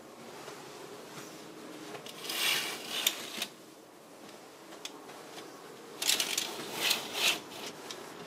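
Fabric curtain rustling as it is brushed aside, in two bursts of rustling a few seconds apart, with a few small clicks and knocks of handling.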